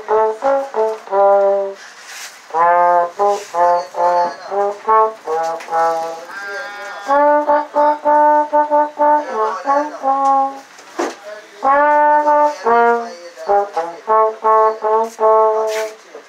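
Slide trombone playing a melody, a single line of short and held notes in phrases with brief pauses between them.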